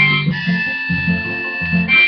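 Harmonica and strummed acoustic guitar playing together, the harmonica holding long notes over the guitar chords and moving to a new note near the end.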